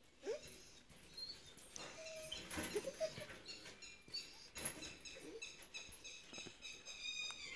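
German Shepherd dog whimpering softly: a few short, rising whines a second or two apart.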